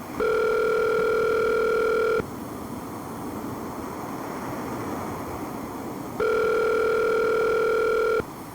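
North American telephone ringback tone heard over the line of an outgoing call: two steady rings about two seconds long, four seconds apart, with line hiss in between. The phone is ringing unanswered before voicemail picks up.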